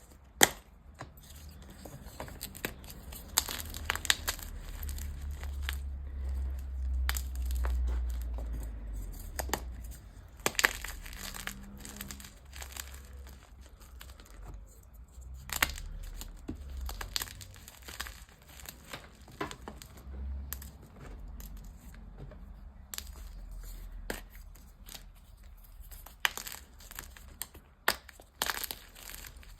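Dyed gym chalk being crushed and crumbled: irregular crunches and crackles as the powdery chalk breaks apart, with one sharp crack just after the start.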